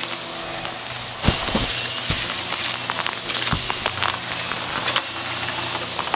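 Hart upright vacuum running on carpet with a steady motor hum, sucking up scattered debris that crunches and crackles irregularly as it goes through.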